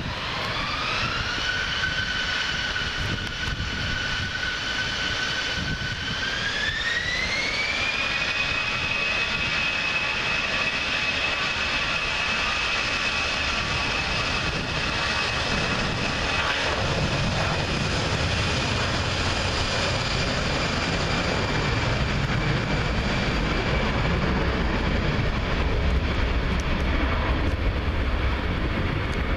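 Airbus A320's twin jet engines spooling up for take-off. The whine rises in two steps, right at the start and again about six seconds in, then holds steady and sinks slightly near the end. A low roar builds as the jet accelerates down the wet runway.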